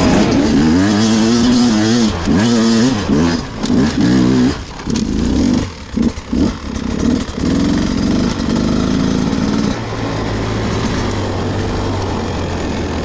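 Beta 250 RR two-stroke enduro motorcycle engine revving up and down under changing throttle. The throttle is chopped several times around the middle, then the engine holds a steadier note near the end.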